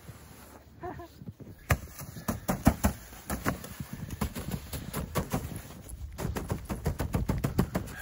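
Gloved hand repeatedly slapping and punching the fabric wall of a portable fabric shed to knock the snow off it: a fast, uneven series of dull thumps.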